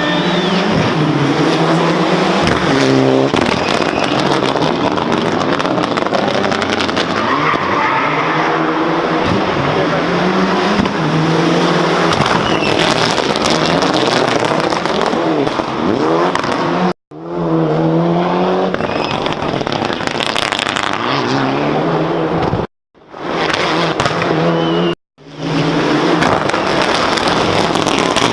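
Rally car engines driven hard, revs rising and falling through gear changes, with exhaust pops and crackles and tyres skidding. The sound cuts off abruptly three times between shots.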